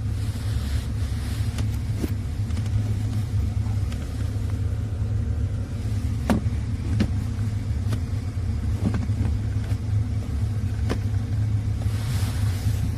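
Steady low rumble of a car in motion, heard from inside the cabin, with a few light clicks and knocks.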